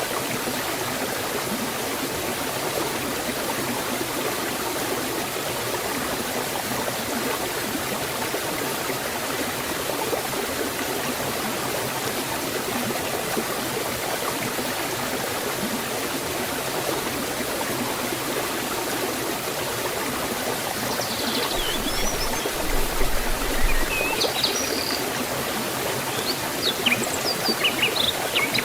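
Waterfall and forest stream: water rushing and splashing steadily, with a few brief high chirps in the last several seconds.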